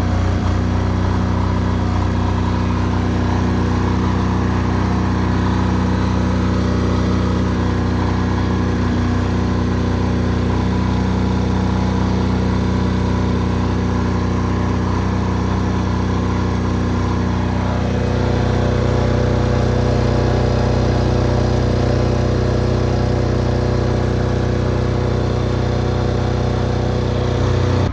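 Chinese copy of a Yanmar L100 single-cylinder air-cooled diesel engine running a portable generator at a steady speed. About 18 seconds in, the engine note shifts slightly and grows a little louder.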